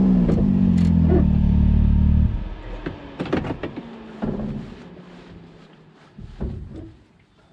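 Side-by-side UTV engine running with its pitch dropping, then switched off about two seconds in. A few scattered clicks and knocks follow.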